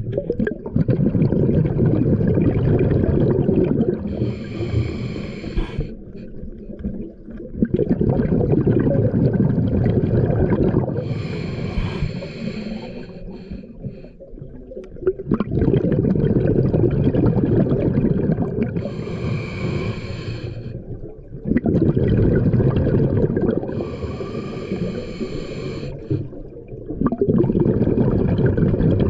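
Scuba diver breathing through a regulator underwater: a short hissing draw on each inhale, then a long gurgling rush of exhaled bubbles, about four breaths in a steady rhythm.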